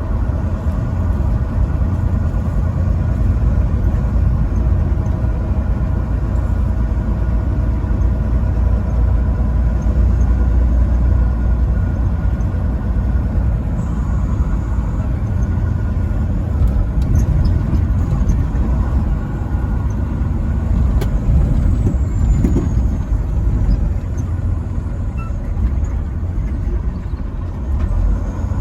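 Truck driving along the road: a steady, low engine and road rumble with no horn.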